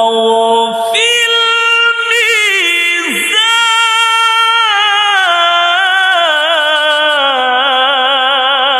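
A male Qur'an reciter's voice in melodic tajweed recitation, drawing one phrase out into a long, ornamented melisma. The pitch wavers and steps gradually downward toward the end.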